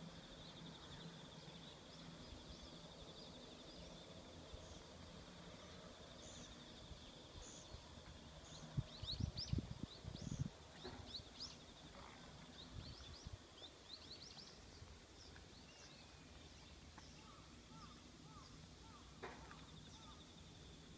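Quiet lakeside ambience: a steady, high insect trill with small birds chirping over it through the middle. About nine to ten seconds in come a few louder low bumps, wind or handling on the microphone.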